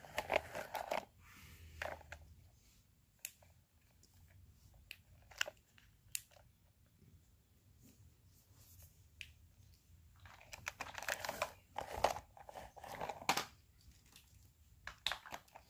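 Handling noise from a plastic toy army truck: scattered light clicks and rustling as hands turn it and work its small launcher part, busier with rubbing and clicking near the end.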